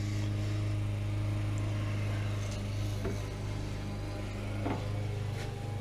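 Steady low mechanical hum with a few faint taps about three and four and a half seconds in.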